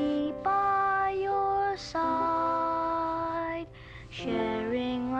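A boy singing a slow, lullaby-like song in long held notes over soft instrumental accompaniment, with a short pause for breath a little under four seconds in.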